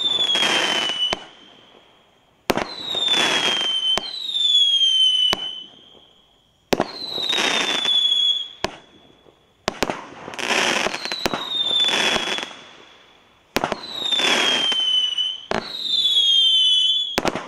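Spook Fireworks Sonic Attack 16-shot barrage cake firing shot after shot, about every one and a half to two seconds. Each shot is a sharp crack followed by a whistle that falls slightly in pitch, with a rushing hiss lasting about a second.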